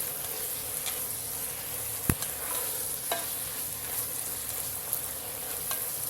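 Chicken and shimeji mushrooms sizzling steadily in a hot pan as they are stirred, with a utensil clicking against the pan a few times, sharpest about two seconds in.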